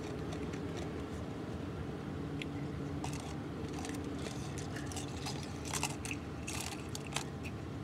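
Close-up eating sounds: biting and chewing of a sandwich, with scattered crunches that come more often in the second half, over a steady low hum inside the car.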